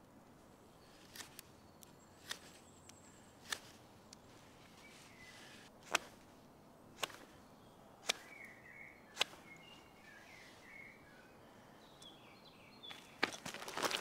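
Swiss Army knife blade slicing wood as a spoon is whittled: short, sharp cutting strokes about once a second, with a louder rustle of handling near the end.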